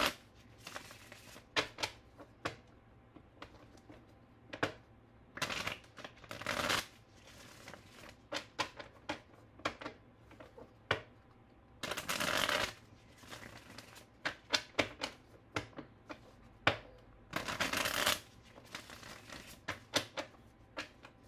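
A deck of tarot cards being shuffled by hand: three longer bursts of shuffling about six seconds apart, with light taps and clicks of the cards in between.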